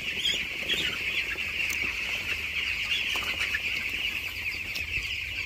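A large flock of 12-day-old broiler chicks cheeping all at once, a dense, steady chorus of many overlapping high peeps.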